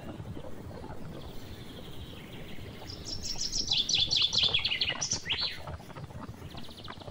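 A bird calling: a run of quick, high notes that each sweep downward, loudest about three to five seconds in, ending with a short fast trill. Under it is a steady low rumble of wind and water.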